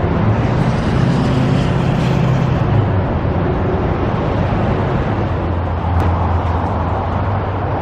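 Road traffic: a vehicle engine's low hum passes over steady road noise in the first few seconds, then another engine hum sets in about five seconds in.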